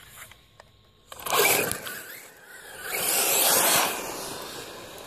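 HPI Trophy Flux 1/8 brushless electric buggy driven hard on rough tarmac: tyres scrabble and the motor whines in a sudden burst about a second in, then a louder run around three seconds that fades as the buggy pulls away.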